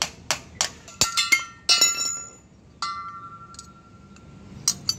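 Sharp metal clicks and clinks from a steel exhaust brake chamber being knocked and pried apart by hand, its halves and inner parts knocking together. Several quick clicks come in the first second and a half, then a ringing clink near two seconds and another ringing note about three seconds in, with more clicks near the end.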